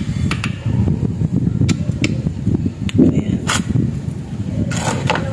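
Socket ratchet clicking in irregular single clicks, with a short run of clicks near the end, as the oil drain bolt is worked loose, over a steady low rumble.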